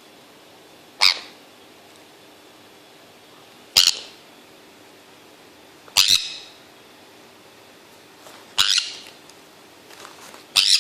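Pet parrot squawking: five short, loud calls, one about every two and a half seconds.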